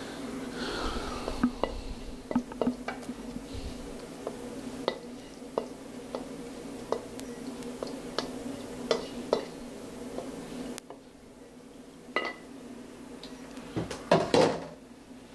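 Cutlery and dishes clinking: a string of sharp clinks and taps of utensils on plates and pans, over a steady low hum that cuts off about two-thirds of the way through. A couple of louder knocks come near the end.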